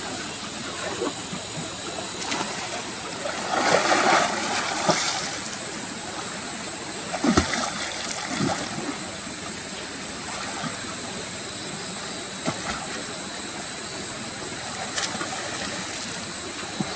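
Water splashing and sloshing in shallow water, with a louder stretch of splashing about four seconds in and a sharp splash a few seconds later.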